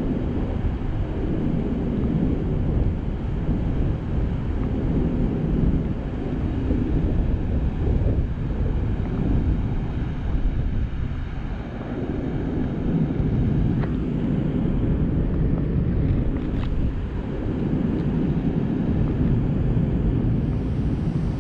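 Wind buffeting the microphone over the steady rush of water pouring through a dam spillway.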